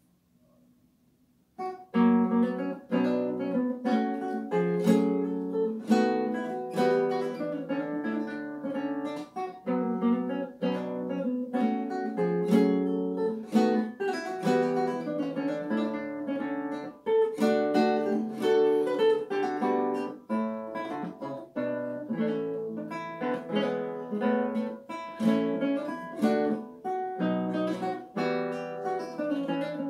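Solo classical nylon-string guitar. After a brief near-silence, playing begins with a loud attack about one and a half seconds in and carries on as a busy run of plucked notes and chords.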